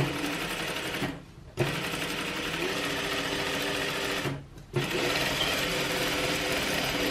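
Sewing machine running, sewing a top stitch along a fabric seam, in three runs with two short pauses between them.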